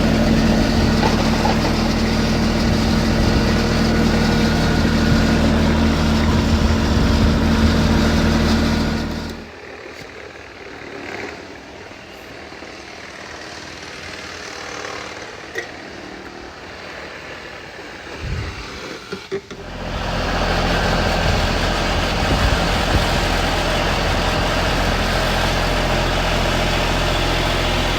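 Engine of construction equipment running steadily. About ten seconds in it gives way for roughly ten seconds to quieter background sounds with a few knocks, then the engine comes back.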